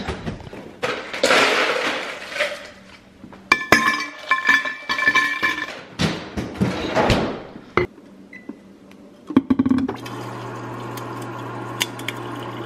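Clinks and knocks of a metal-rimmed insulated water bottle being handled, some ringing briefly. From about ten seconds in, a refrigerator door water dispenser runs with a steady hum as it fills the bottle.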